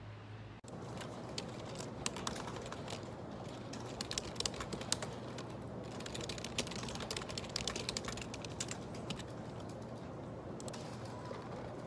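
Fast typing on a computer keyboard with round keycaps: a dense, rapid run of key clicks that starts about half a second in and thins out near the end.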